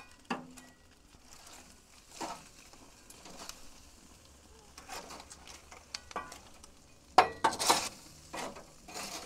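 Jerk chicken sizzling on a grill, with scattered short scrapes and clinks as the pieces are handled and turned, and a louder clattering scrape about seven seconds in.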